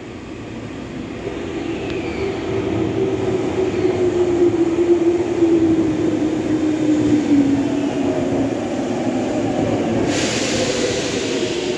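Tokyu 1000 series electric train running into an underground station and past the camera, growing louder. Its motor whine slides down in pitch, and a burst of hiss comes near the end.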